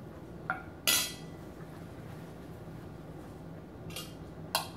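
Metal fork clinking against a dinner plate: a few short sharp clinks, the loudest about a second in, two more near the end.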